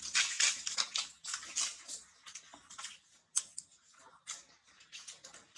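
Macaques scampering over dry leaf litter: quick, irregular crackling and rustling, densest in the first second, with a sharp snap about three and a half seconds in.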